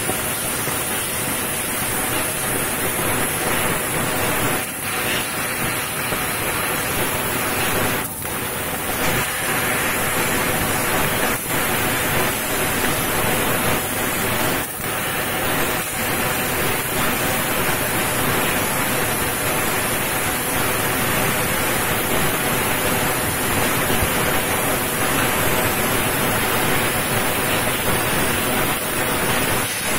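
Fiber laser cutting machine cutting thin sheet metal: a steady, loud hiss from the cutting head's assist gas and the cut. It breaks off briefly a few times in the first half.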